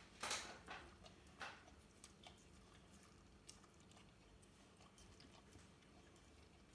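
A whippet's mouth smacking and licking at sticky peanut butter: a few loud wet smacks in the first second and a half, then fainter tongue clicks.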